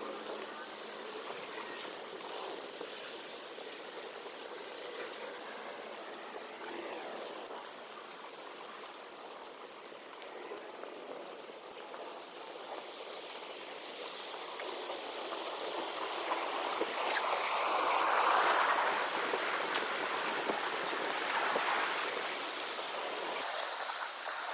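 Rush of water through a river lock's sluice gate. It starts as a steady background hiss, swells to its loudest a little past the middle and then eases off. A few sharp clicks come before the rush builds.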